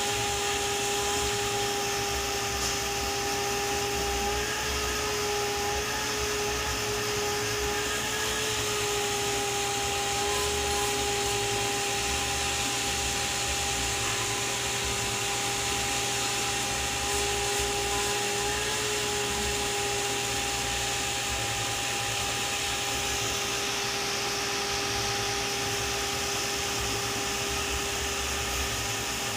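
Steady whir of a running electric motor with a hum held at two pitches, wavering slightly a couple of times.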